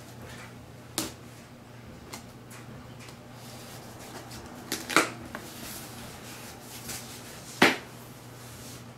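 A cardboard shipping box being handled and opened with a pin: a few scattered sharp clicks and scrapes of cardboard, the loudest about halfway through and near the end.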